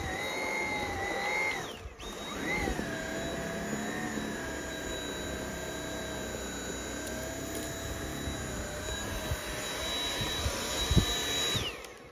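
Dyson V7 cordless stick vacuum running with a high motor whine whose pitch wavers slightly as the suction load changes. It cuts out briefly about two seconds in and starts again, then winds down with a falling whine near the end as it is switched off. A few knocks sound along the way.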